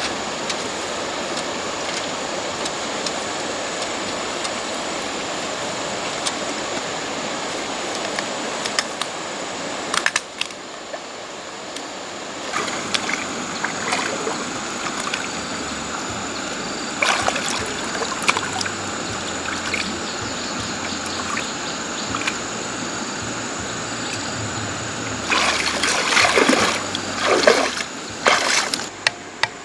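Water trickling and running steadily, with scattered splashes and sloshes that come thicker near the end.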